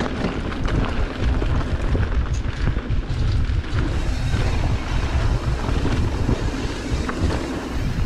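Mountain bike riding down a dirt and gravel trail: wind rushing over the action camera's microphone with a heavy low rumble, and the crunch of tyres and many small rattles and knocks of the bike over rough ground.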